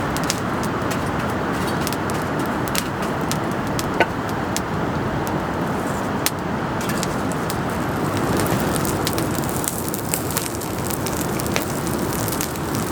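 Steady hiss of rain, with irregular sharp ticks and crackles scattered through it.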